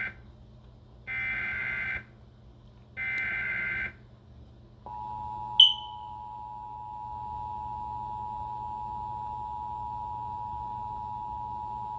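Emergency Alert System SAME header: warbling data bursts about a second long, one ending and two more following a second apart. Then the EAS two-tone attention signal starts and holds steady, with a brief high chirp shortly after it starts.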